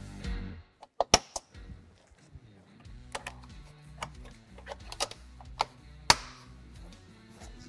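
Scattered sharp clicks and taps of tools and plastic interior trim being refitted in the truck cab, the loudest about a second in and about six seconds in, over quiet background music.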